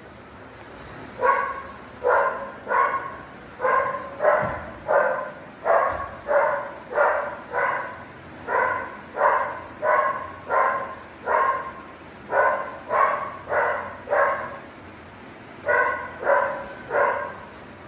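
A small dog barking over and over, short high barks about two a second in runs broken by brief pauses.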